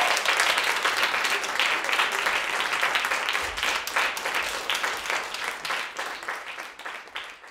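Audience applauding, many hands clapping at once, the applause slowly thinning and fading away toward the end.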